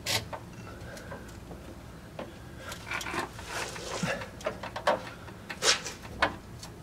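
Rear coil spring being wrestled into its seat on a car's rear suspension: irregular knocks, clunks and scrapes of metal as it is pushed and twisted into place, with a few sharper knocks in the latter half.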